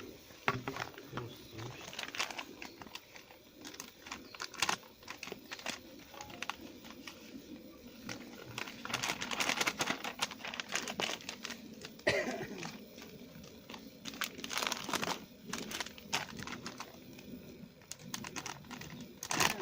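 Irregular rustling and crinkling with scattered sharp clicks, like something being handled close to the microphone.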